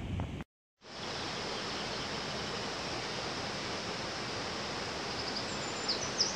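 Steady rush of a waterfall and river, starting after a brief cut to silence less than a second in. A few short high chirps come in near the end.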